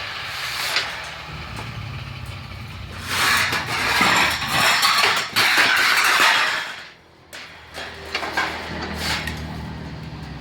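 Hand file rasping on the welded joint of a steel bandsaw blade, in a few long strokes through the middle of the stretch, with a low hum underneath and scattered metal clicks near the end.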